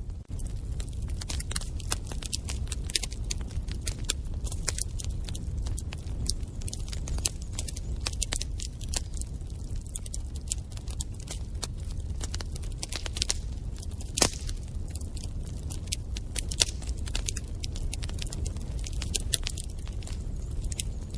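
Wood fire in a fireplace crackling: a stream of irregular sharp pops and snaps over a low, steady rumble, with one pop about fourteen seconds in louder than the rest.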